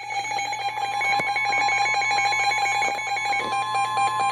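NOAA Weather Radio alert tones signalling an incoming warning broadcast: a loud electronic alarm of rapidly alternating beeps over a steady lower tone. The higher beeping drops out about three quarters of the way through.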